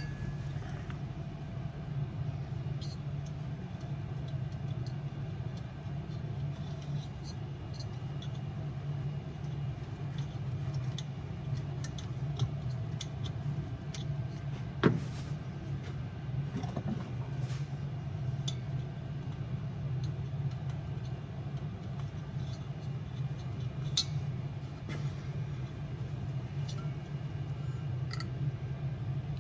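Scattered small clicks and scrapes of a small flathead screwdriver working a gasket into its seat on a diesel heater's metal housing, with one sharper click about halfway through, over a steady low background hum.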